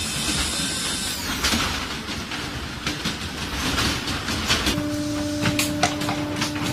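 Shoe factory production machinery running: a steady mechanical noise with repeated clanks and clicks of metal parts. A steady hum sets in about two-thirds of the way through.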